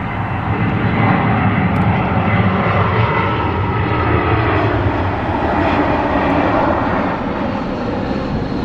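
Airbus A319-132 jet airliner passing low overhead on approach with landing gear down: the steady rumble and hiss of its two IAE V2500 turbofans, swelling about a second in and easing slightly near the end.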